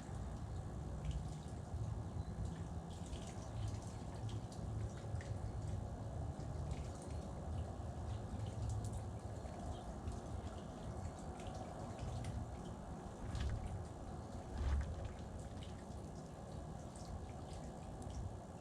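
Outdoor ambience: a steady low rumble with many small scattered clicks and taps, and one louder thump-like swell near the end.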